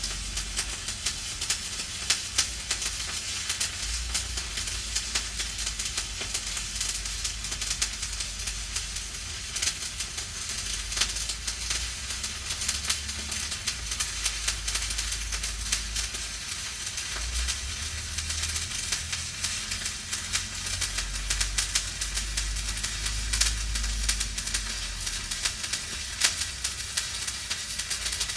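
Stick (SMAW) welding arc burning steadily, a continuous crackling sizzle full of sharp pops.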